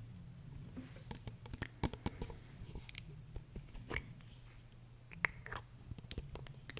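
Close-miked ASMR sounds: soft, irregular clicks and small taps, with a brief soft hiss about three seconds in.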